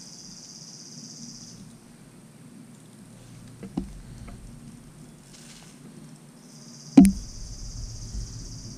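Insects buzzing in a steady high-pitched drone that comes in two spells, once early on and again later. A single sharp knock about seven seconds in is the loudest sound.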